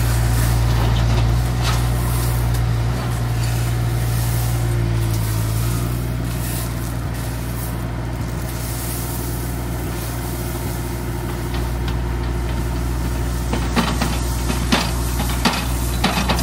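Heavy diesel equipment engine running steadily with a low drone, with a few sharp knocks near the end.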